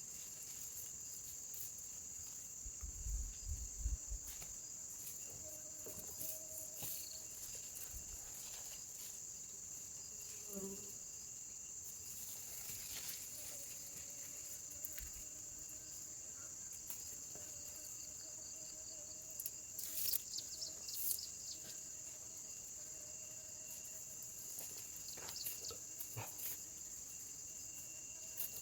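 Steady high-pitched chirring of insects such as crickets, continuous throughout, with scattered faint clicks and a few soft knocks on top, loudest a few seconds in and around two-thirds of the way through.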